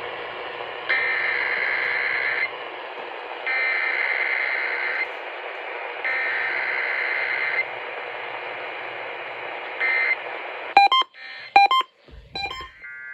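EAS SAME header data bursts from a radio broadcast: three buzzy digital tone bursts of about a second and a half each, evenly spaced over steady radio hiss. A short blip and a few sharp clicks with tone fragments follow near the end.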